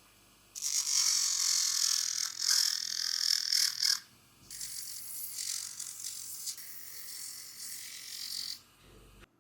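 Two long bursts of pressurised spray hissing, a loud one of about three seconds and then a slightly quieter one of about four seconds.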